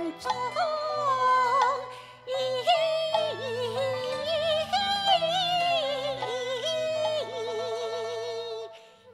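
Cantonese opera music: a sliding lead melody with vibrato over sustained low accompaniment, the interlude between two sung phrases, dipping briefly near the end.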